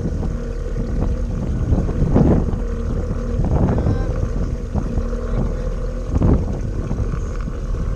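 Wind buffeting the microphone over a faint steady hum, with a few louder gusts or thumps about two, three and a half and six seconds in.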